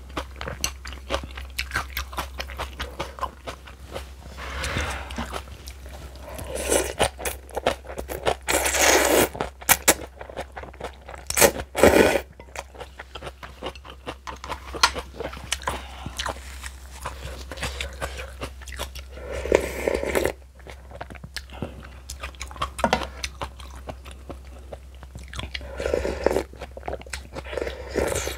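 A person chewing and crunching on kimchi: a dense run of small wet crunches and mouth sounds, with a few louder bites.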